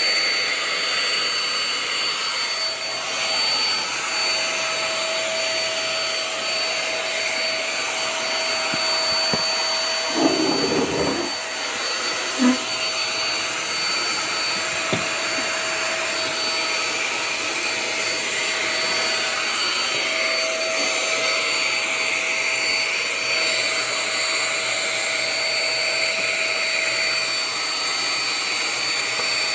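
Handheld household vacuum cleaner running steadily, a constant rushing hiss with a steady high-pitched tone in it. About ten seconds in there is a brief lower rumble, followed by a short click.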